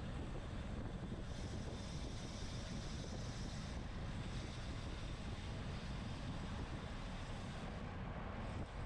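Wind buffeting the microphone of a camera on a racing bicycle moving at speed, a steady low rumble. A higher hiss joins from about one second in to nearly four seconds.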